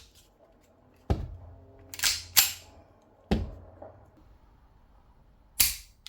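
Sharp mechanical clicks and clacks from an airsoft M9 Beretta green-gas pistol being worked by hand, five in all at uneven intervals. Its gas reservoir is still empty, so the mechanism clacks without a shot.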